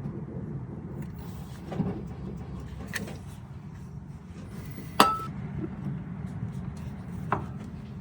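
Scattered metallic clicks and taps of hand tools working on metal, with one sharp, briefly ringing clink about five seconds in, over a steady low hum.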